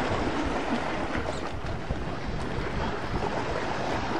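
Gusty wind rushing over the microphone, with waves washing against the pier.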